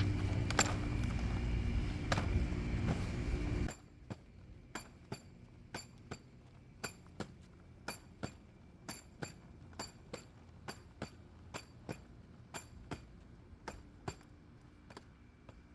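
A steady low rumble that cuts off suddenly about four seconds in, followed by a long series of light, sharp clicks or clinks, two or three a second.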